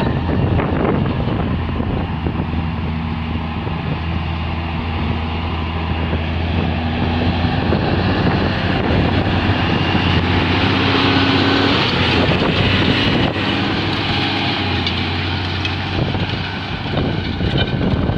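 New Holland 8870 tractor's six-cylinder diesel engine running steadily under load while pulling a seed drill. It gets louder as the tractor passes close, about halfway through.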